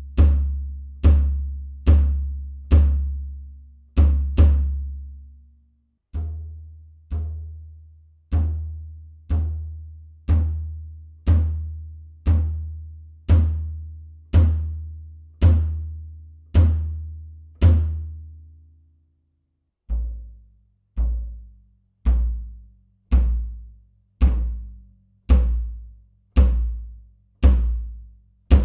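Zebra Drums free-floating walnut bass drum kicked with a pedal beater, single hits about once a second, each a deep thud that rings out. The hits come in three runs with short pauses near 6 seconds and 19 seconds, and the drum's tone changes from one run to the next as the tuning or beater changes.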